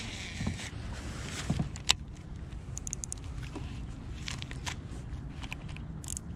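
Light clicks and rustles of fishing gear being handled, with one sharp click about two seconds in, over a low steady rumble.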